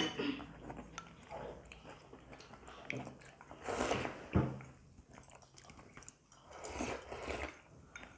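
Eating sounds: chewing, and a sip of soup from a bowl about four seconds in, with a light click of tableware just after it and another soft eating noise near the end.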